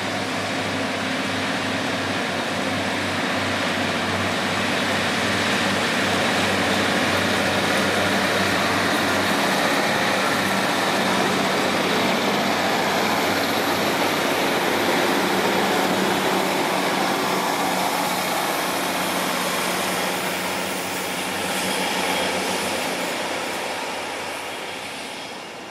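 Class 150 Sprinter diesel multiple unit moving off and passing close by: its underfloor diesel engines give a steady low hum at first, then the engine and wheel-on-rail noise grow louder as the carriages pass, and the sound fades near the end as the train draws away.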